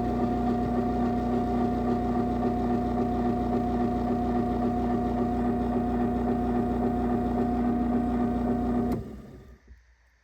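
Craftsman chain-drive garage door opener running through a closing cycle after a remote press: a steady motor hum with a fine low pulsing. It stops about nine seconds in and winds down.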